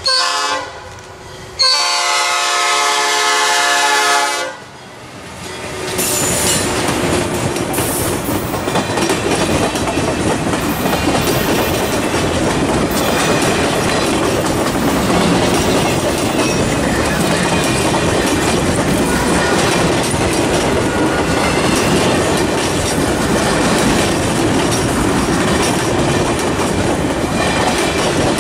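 Diesel locomotive's air horn sounding two blasts for a grade crossing, a short one and then a longer one, followed by the passenger train rolling past close by: a loud steady rumble of wheels on rail with the clickety-clack of the rail joints.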